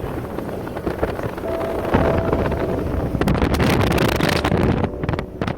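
Wind buffeting the phone's microphone over the rumble of a moving car. It grows louder about two seconds in and eases near the end.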